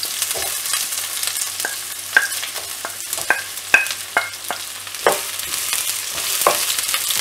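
Sliced onions sizzling as they drop into hot oil in a coated kadai. Through the sizzle come about a dozen sharp clinks and knocks, some with a short ring, as the plate and wooden spatula strike the pan.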